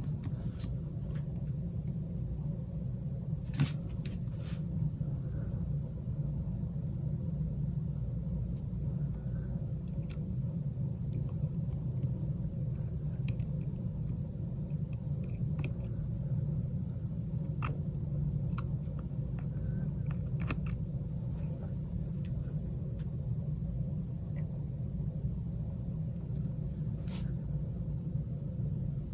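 Steady low hum with scattered faint, sharp clicks and taps of a small precision screwdriver and metal parts as tiny screws go back into an iPhone 8 Plus.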